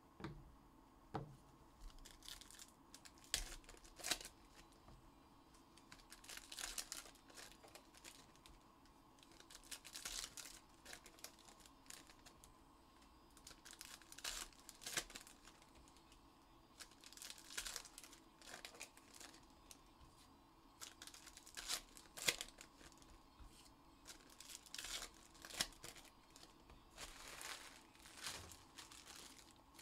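Trading card packs' plastic wrappers being torn open and crinkled, in short irregular rustling bursts every second or so, with a couple of soft knocks at the start.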